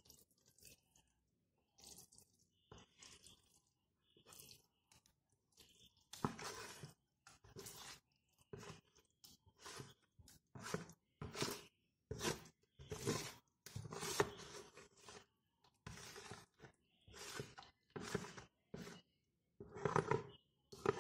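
Thick wet cornstarch paste being scooped and poured from a cloth-lined bowl into a plastic container: a run of irregular short wet sounds, faint at first and louder from about six seconds in.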